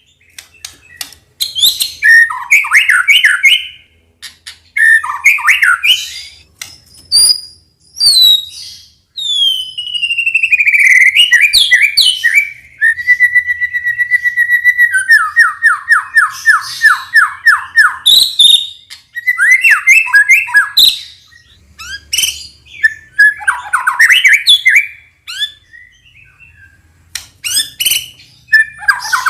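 White-rumped shama (murai batu) singing a loud, varied song of whistled phrases and quick chattering runs with short gaps between them. About halfway through comes a held note and then a fast run of repeated notes.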